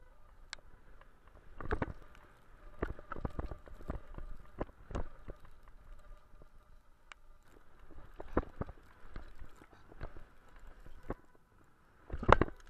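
YT Capra full-suspension mountain bike clattering over a dirt trail: irregular knocks and rattles from the bike as it runs over bumps. A louder burst of knocks comes near the end as it goes over a dirt jump.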